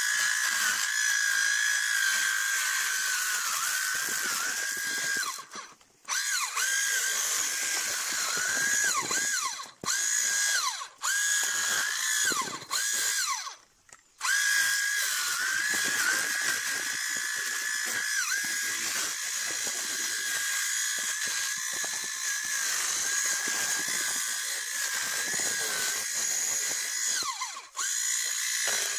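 Handheld coffee harvester's small electric motor running with a steady high whine, its pitch dipping briefly each time the head works into the branches. It cuts out and starts again several times, most often between about 5 and 14 seconds in.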